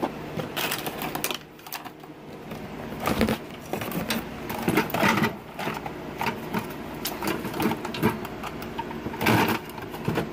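Irregular clicks, taps and rustles from a handheld phone being handled close to its microphone, over a steady low hum.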